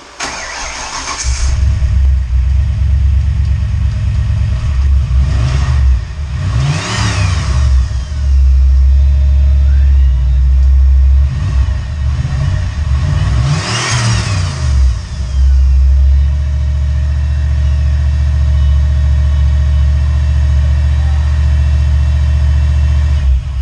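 Fox-body Mustang's 351 Windsor V8 cranks briefly and catches about a second in, then idles loud and lumpy through dump pipes and Flowmaster mufflers. It is blipped up twice, around 7 and 14 seconds in, and settles back to idle each time.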